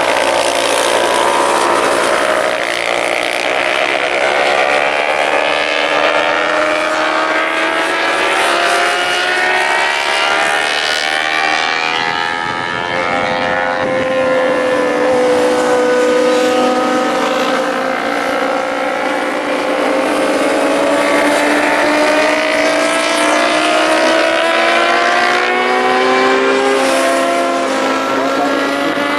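Several small-capacity 300–400 cc supersport race motorcycles passing at racing speed, one after another. Their high-revving engines climb in pitch as they accelerate, with drops at the gear changes.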